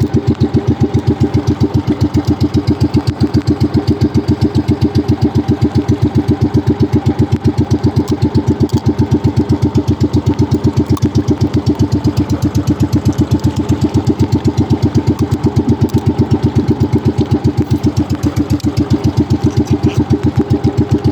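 Motorized fishing boat's engine running steadily with a rapid, even chugging pulse.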